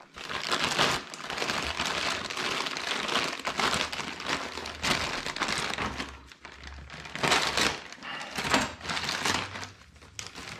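A bag of rice crinkling and rustling as it is handled, in irregular bursts with brief lulls.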